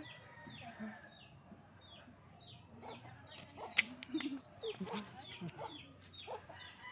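Chickens calling: a steady run of short, high, falling peeps about three a second, with a few low clucks. A single sharp click a little before four seconds in.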